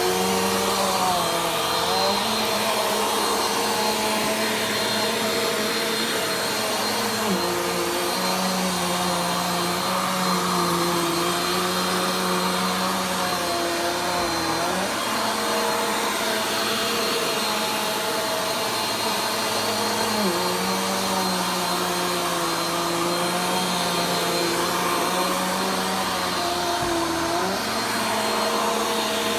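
Vacuum cleaner running steadily during slow vacuuming, a continuous motor hum over airflow hiss. Twice, for several seconds at a time, the motor's pitch drops slightly and then glides back up.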